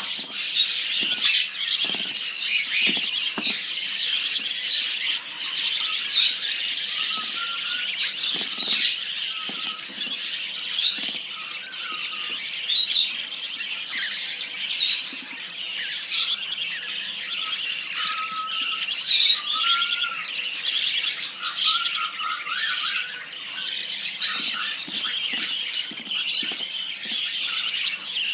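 A brood of Java sparrow nestlings, 12 to 18 days old, calling together in a continuous mass of high, shrill cheeping, with a few soft knocks now and then.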